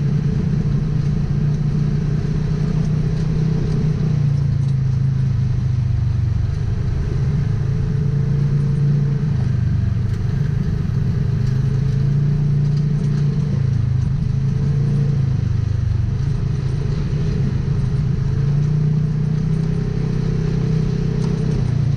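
Polaris RZR XP 1000 side-by-side's parallel-twin engine running as it drives, its pitch rising and falling gently with the throttle.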